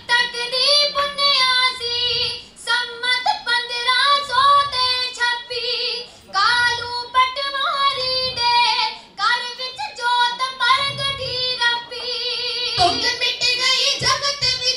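Girls singing kavishri, Punjabi folk verse, into microphones in high voices with no instruments, in phrases a few seconds long with brief breaks between them.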